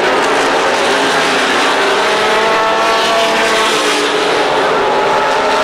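Super late model stock cars' V8 engines racing at speed: a loud, steady drone of several engines at once, their tones overlapping.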